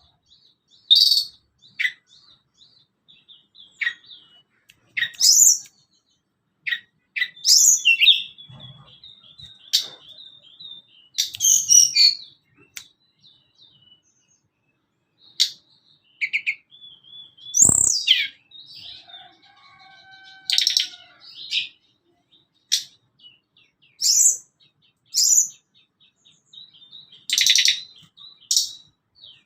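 A tledekan gunung bird calling: short, sharp, high chirps and whistled notes in irregular bursts, with pauses of a second or two between them.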